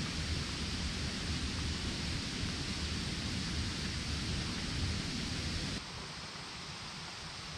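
Wind buffeting the microphone outdoors: a steady rush with an uneven low rumble, which drops suddenly about six seconds in to a quieter rush with less rumble.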